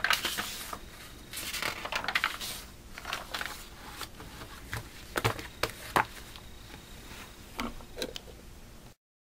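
Magazine pages being turned and handled: paper rustling in several bursts, then a few sharp taps in the second half. The sound cuts off abruptly near the end.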